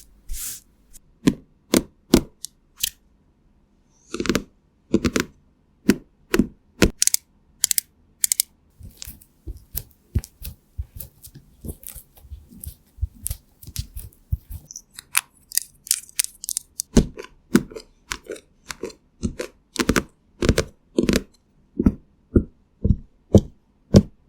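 A long series of short, crisp taps and clicks at an uneven pace, coming faster, about two a second, in the second half: close-miked ASMR tapping and clicking sounds.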